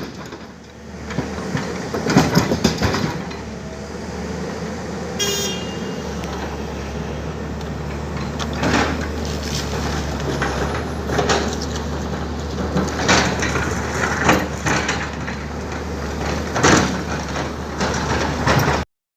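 Tata Hitachi excavator's diesel engine running steadily, with repeated sharp knocks and clatter as boulders are handled, and a brief high squeal about five seconds in. The sound cuts off abruptly near the end.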